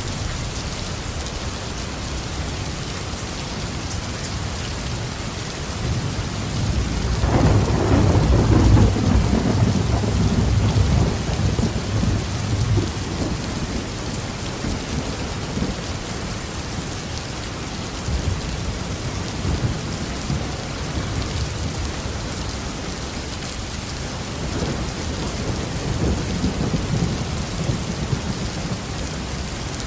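Heavy rain falling steadily on a roof, with a long roll of thunder building about seven seconds in, loudest a couple of seconds later and dying away over several seconds; a fainter rumble follows near the end.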